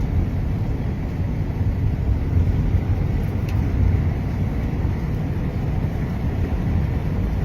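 Steady low rumble of a moving vehicle, with a faint thin tone above it.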